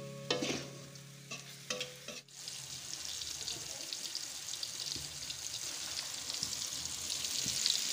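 Blocks of tofu frying in hot oil in a wok, a steady sizzle from about two seconds in. Before that, a few short knocks.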